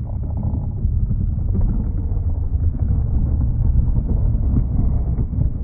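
Skateboard wheels rolling over rough concrete: a steady low rumble with small scattered knocks.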